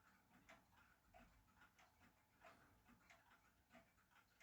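Near silence with faint, regular ticking, a stronger tick about every two-thirds of a second and weaker ones between.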